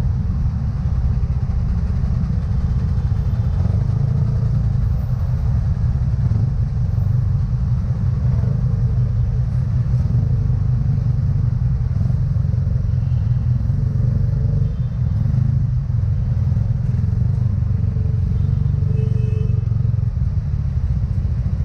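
Motor scooter riding slowly through stop-and-go traffic, heard from the rider's seat: a steady low rumble of its engine and road noise, with surrounding traffic.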